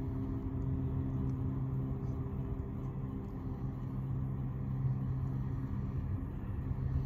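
Steady low drone of boat engines, with faint crackles from a wood fire.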